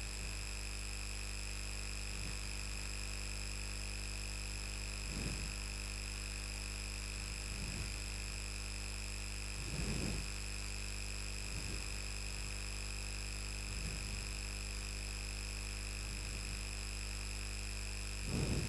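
Steady electrical hum with several high, thin whining tones, and now and then a faint short rub of a marker drawing lines on a whiteboard.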